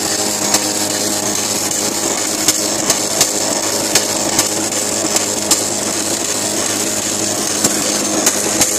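TallyGenicom T6215 line matrix printer printing an all-characters test page: a loud, steady, dense rasping buzz of the print hammers, with irregular sharp clicks above it.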